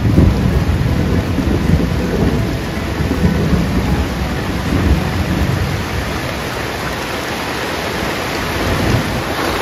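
Heavy tropical downpour drumming on a tarp shelter, with runoff pouring off the tarp's edge in a stream. It makes a dense, steady rushing hiss over a deep rumble.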